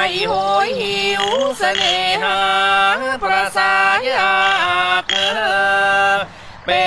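A high, woman's voice singing a slow, wordless-sounding melody of long held notes that slide and bend between pitches, over a steady low note beneath. The voice breaks off briefly near the end, then comes back in.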